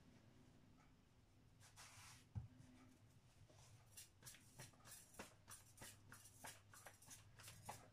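Near silence with faint handling sounds: a soft rustle about two seconds in, then quick light pats from about four seconds on as a keema-filled paratha dough is lifted and patted between the hands.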